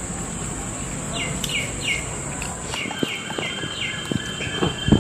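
A bird calling a quick run of short chirps, each falling in pitch, about three a second, over a steady high drone of insects. Light clicks of forks on plates come in during the second half.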